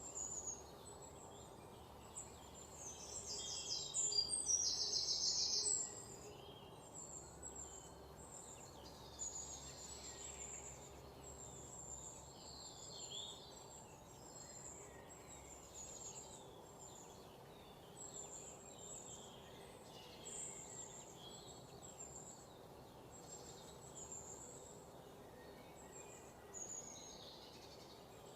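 Forest ambience of wild birds chirping, with short high calls repeating throughout. A louder, rapid stuttering call stands out from about three to six seconds in.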